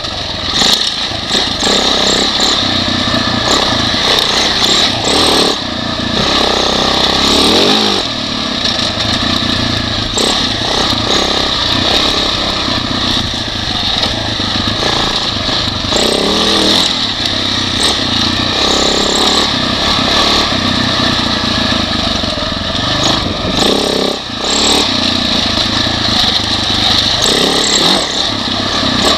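2006 Husaberg FE550e's single-cylinder four-stroke engine running hard under a rider on a bumpy dirt trail, its pitch rising and falling as the throttle is rolled on and off. Occasional short knocks come from the bike hitting braking and acceleration bumps.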